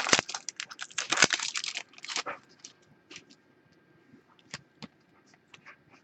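Hands working at a desk: a dense run of sharp clicks and crackles for about two seconds, then scattered single clicks.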